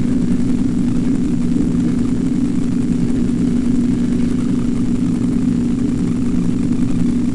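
Steady low machine hum, loud and unchanging in pitch.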